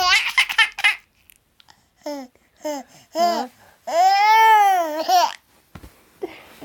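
A ten-month-old baby's high-pitched vocalising: a quick run of giggles at the start, a few short babbled sounds, then one long squeal that rises and falls about four seconds in.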